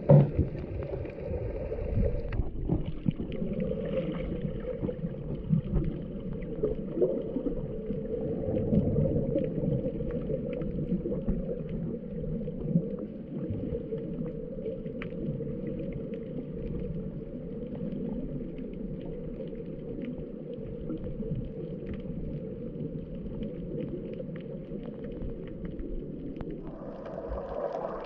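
Muffled underwater sound picked up by a GoPro in its housing while snorkeling: a low, steady wash of moving water with faint scattered clicks.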